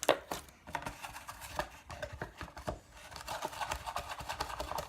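Irregular clicks, taps and light rustling of small containers and craft supplies being handled.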